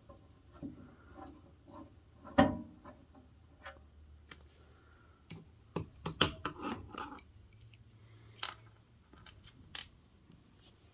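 Scattered clicks, scrapes and knocks of a screwdriver and screws working on an electric space heater's casing as it is taken apart, the loudest knocks about two and a half and six seconds in.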